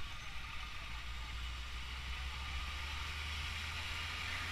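Heavy cargo truck driving past close by, its engine a steady low rumble, with road and tyre hiss growing toward the end as it draws nearest.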